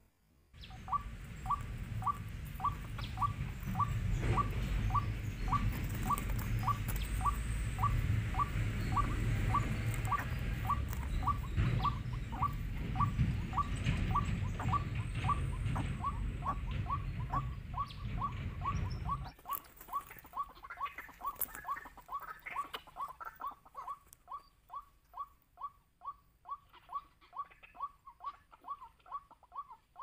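White-breasted waterhen calls: a short, sharp note repeated very evenly, about two to three a second, the lure call for wild waterhens. A loud low rumble runs beneath the calls and cuts off suddenly about two-thirds of the way through.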